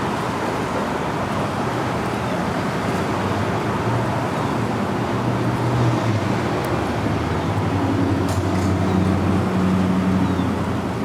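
Road traffic: a steady rush of passing vehicles, with a low engine hum that swells around the middle and again near the end.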